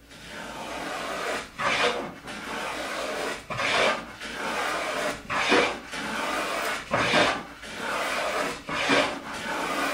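Small hand plane cutting a chamfer along the edge of a pine board, a stroke about every second and a half. It is working with the grain, so each pass peels off clean shavings instead of tearing out chunks.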